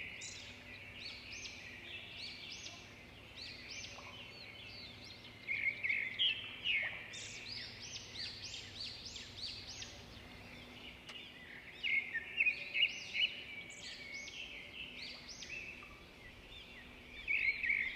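Caged birds chirping: many short, overlapping high chirps and calls, with louder flurries about a third of the way in, about two-thirds in and near the end.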